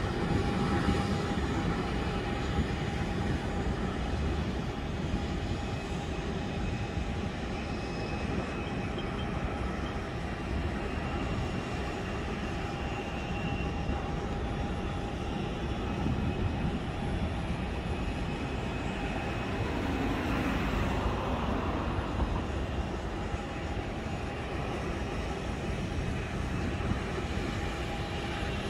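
Steady airport apron noise: a continuous rumble of running aircraft engines and ramp equipment with a faint steady whine over it, swelling briefly about twenty seconds in.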